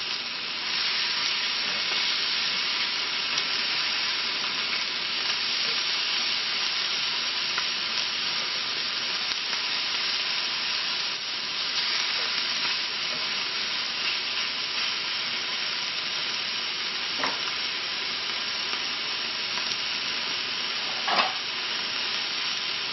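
Thin tandoori-marinated chicken breasts sizzling steadily on a cast iron grill pan as they cook through. Two short sharp clicks come in the second half, the second one louder.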